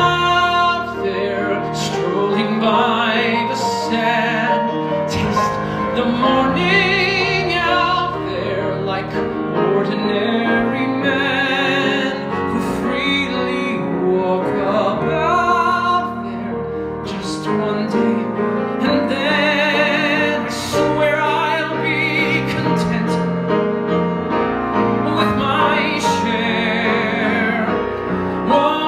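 A man singing a Broadway-style ballad live into a microphone, accompanied by grand piano, with long notes held with vibrato.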